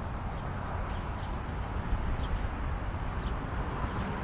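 Steady low outdoor rumble, with short high chirps that fall in pitch, repeating about once a second.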